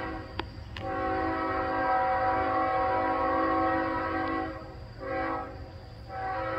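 Diesel freight locomotive's air horn blowing a chord in blasts for a grade crossing: a long blast, a short one, then another long one starting near the end, over a low rumble from the approaching train.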